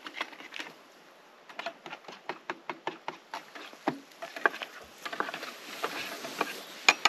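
A spoon stirring coffee in a glass, clinking against the sides in quick, irregular taps with a short pause about a second in, working the coffee powder in so that it dissolves.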